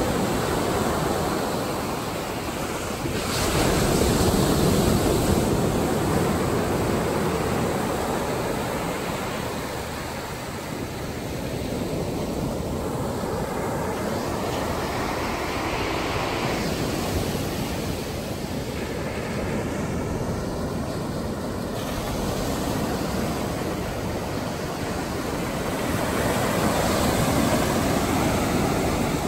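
Ocean surf: small waves breaking on the shore and washing up the sand in a continuous wash, swelling louder as a wave breaks about four seconds in and again near the end.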